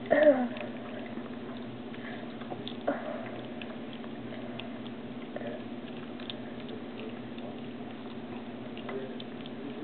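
Black teacup piglet eating Cheerios and milk from a bowl: faint wet chewing and slurping with scattered small clicks over a steady low hum. A short sound falling in pitch right at the start is the loudest thing, with a sharp click about three seconds in.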